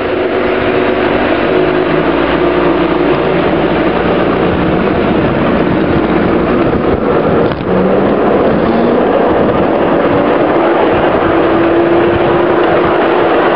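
A 5-inch gauge electric 0-4-0 miniature shunting locomotive running along the track: a steady rumble of wheels on rail, with a motor whine that slowly shifts in pitch. A single sharp click comes about seven and a half seconds in.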